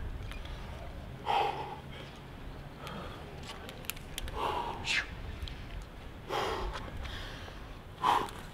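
A rock climber's sharp, forceful exhalations while working hard moves on a steep route, about five short hissing breaths one to two seconds apart, with a few faint clicks between.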